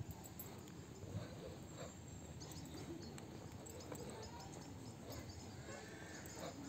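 Quiet outdoor ambience with faint, short bird chirps over a low background murmur, and distant voices near the end.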